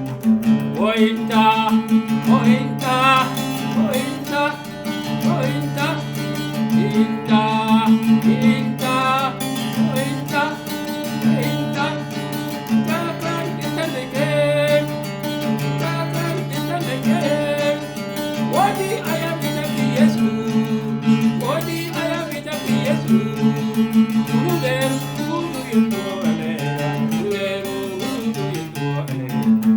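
Music led by plucked, strummed guitar, with a steady beat and a voice that may be singing.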